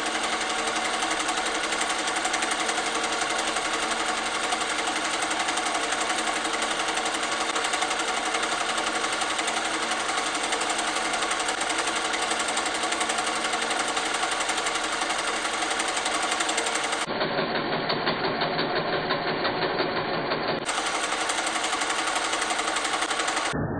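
8mm film projector running: a steady, rapid mechanical clatter of the film transport and shutter. It sounds duller for about four seconds in the later part.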